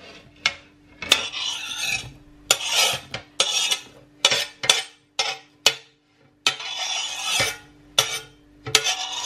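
A knife scraping diced onion off a glass chopping board into a slow-cooker pot: a run of short rasping scrapes, about a dozen strokes, with a few sharp clicks of metal on glass.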